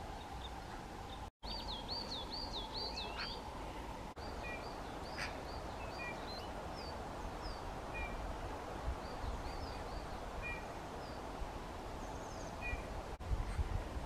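Small forest songbirds singing: about a second in, a quick run of some six repeated high looping notes, then scattered short high chirps and calls over a steady background hiss.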